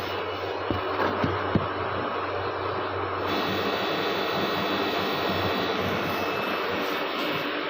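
Window air conditioner running with its newly fitted Coolpad compressor just charged with refrigerant gas: a steady rush of fan air over a low electrical hum. A few light knocks come about a second in.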